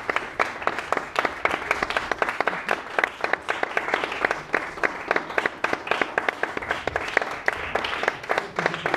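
Audience applauding, a steady run of many separate hand claps in which single claps stand out.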